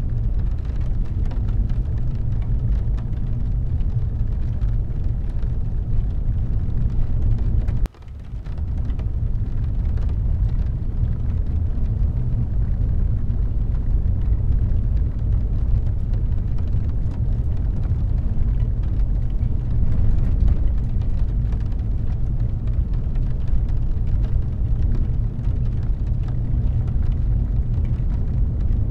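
Rain falling on a car, heard inside the cabin over a steady low rumble. The sound cuts out for an instant about eight seconds in and swells back.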